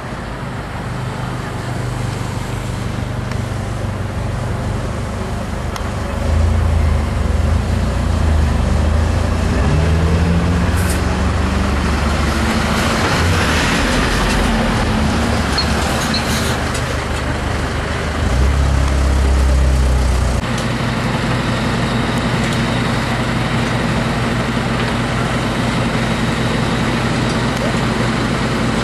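Fire engines' diesel engines running close by with a steady low rumble. It swells louder about six seconds in and again near the end of the second third, and briefly rises in pitch as one revs. There is a burst of hiss about halfway through.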